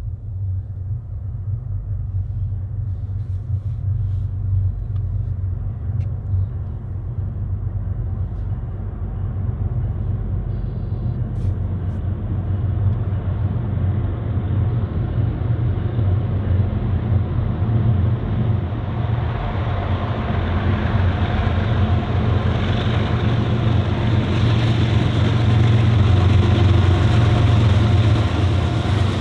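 Diesel locomotives at the head of a Norfolk Southern intermodal freight train, approaching with a steady low rumble that grows louder, fuller and heavier over the last third.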